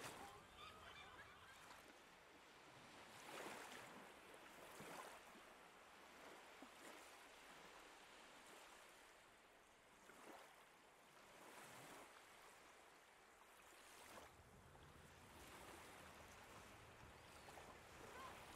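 Faint sea waves washing on the shore, a soft hiss that swells and fades every few seconds.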